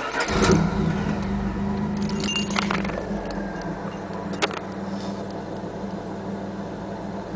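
1997 Pontiac Firebird's 3.8-litre 3800 V6 starting and settling into a steady idle, recorded from inside the engine bay, where the owner is chasing a ticking noise. A few sharp clicks stand out early on.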